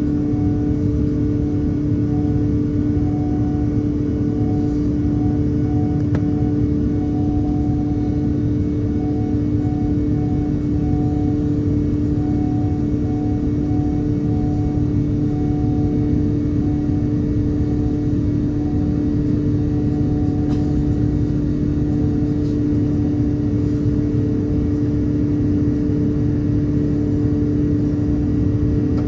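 Steady cabin noise of an Airbus A330-900neo climbing after takeoff, heard from a window seat: the Rolls-Royce Trent 7000 engines and airflow make a constant drone, with two steady hums and a fainter tone that keeps dropping in and out.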